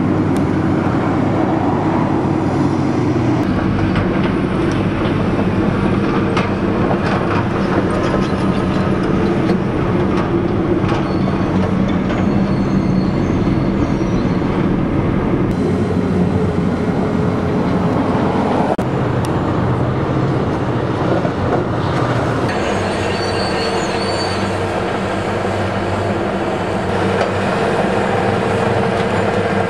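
Heavy tracked hydraulic excavators working a building demolition: a steady, loud diesel drone with occasional knocks. The sound changes a few times as the shots cut.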